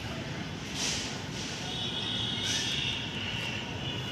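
Outdoor background noise: a steady low hum with a high, thin trill that runs for a second or so from about halfway, and two brief hissing rustles, about a second in and again near two and a half seconds.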